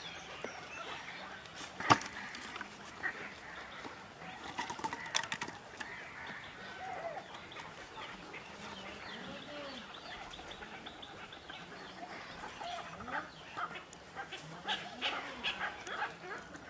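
Handling sounds as live fish are worked out of cut plastic-bottle traps: a sharp knock about two seconds in, then scattered clicks and rustles, busier near the end. Chirping birds and a few short animal calls sound in the background.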